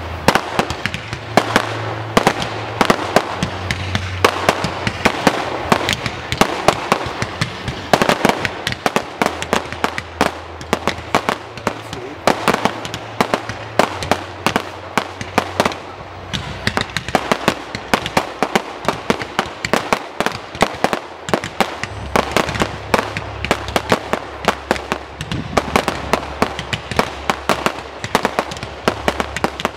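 Daylight firework cake going off: a dense, rapid crackle of many small reports popping across the sky, many per second and without a break.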